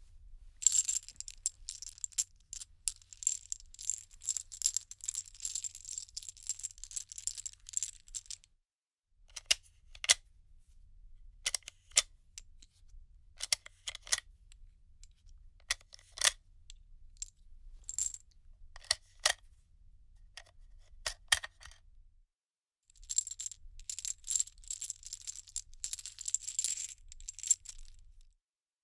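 Small metal objects jingling and clinking: a dense rattling run, then a string of separate single clinks, then another dense run near the end.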